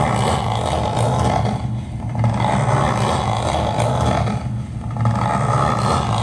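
Recorded vehicle engine sound played through a speaker, swelling and easing a few times like an engine being revved.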